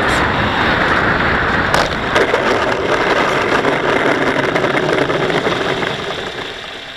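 Bixler RC model plane's electric pusher motor and propeller with wind rush, heard from the camera on board the plane in low flight; the noise dies down over the last second or so.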